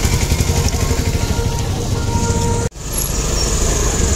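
Busy roadside traffic noise: motor vehicles and scooters running, a dense steady rumble with faint steady tones under it. The sound drops out for an instant about two and a half seconds in, then resumes.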